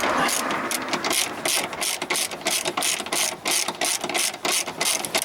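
Hand ratchet wrench clicking in quick, even strokes, about five clicks a second, as a bolt is run in.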